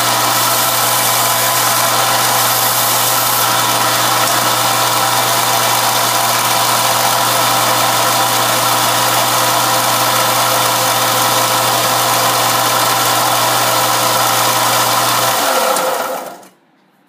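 Small belt sander running steadily with a motor hum and abrasive belt noise, grinding the corner of a thin aluminum plate toward a steel radius template. About fifteen seconds in it is switched off, and the motor spins down and stops within a second or so.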